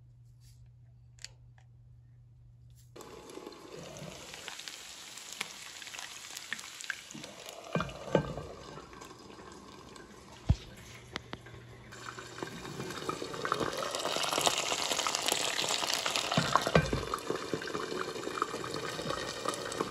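Hot oil sizzling and crackling in a frying pan on the stove. It starts after about three seconds of near silence and grows louder from about halfway through, with a few dull knocks of the pan being handled.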